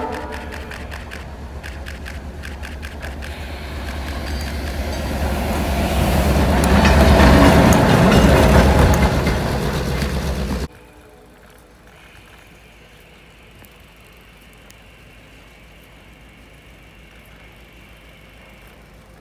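Diesel locomotive of a snow-plow train passing close by: a deep engine rumble and a rushing hiss of snow being thrown, swelling to a peak and then cutting off abruptly about two-thirds of the way through. After that only a faint, steady background remains.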